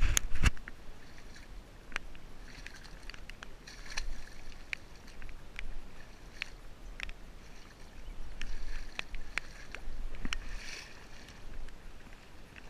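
Water sloshing and splashing in short bouts, with scattered sharp clicks.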